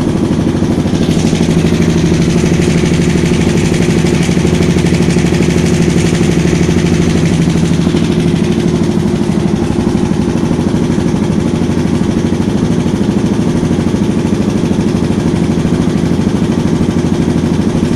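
Kawasaki KLX650C's single-cylinder four-stroke engine idling steadily with a mechanical rattle, which the owner puts down to the timing chain.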